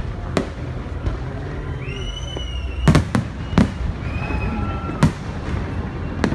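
Fireworks bursting, about five sharp bangs a second or so apart, over a steady low rumble, with whistling tones in the middle.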